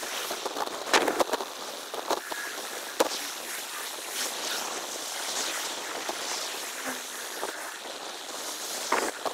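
Wind and street noise from a bicycle ride, played six times faster: a steady hiss broken by a few short, sharp bursts in the first three seconds and again near the end.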